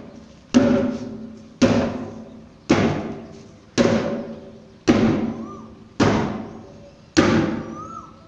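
Sledgehammer striking an old rubber tyre over and over: seven heavy thuds about one a second, each trailing off over about a second.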